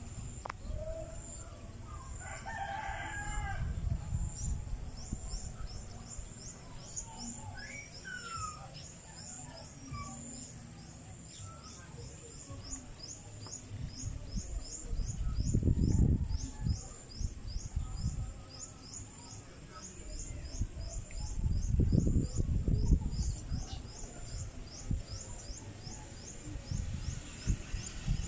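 A rooster crows once, about two to three seconds in, over scattered bird chirps and a steady high-pitched chirping repeated about twice a second. Two low rumbling swells, the loudest sounds, rise and fall around the middle and again later.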